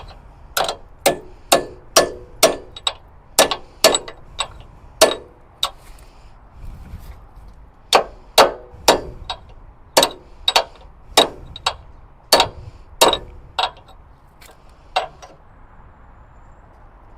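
Hammer striking a steel pin to drive it out of a forklift's hydraulic cylinder mount: sharp, ringing metal-on-metal clangs, about two a second. The blows stop for about two seconds midway, then resume and thin out to a last single strike near the end.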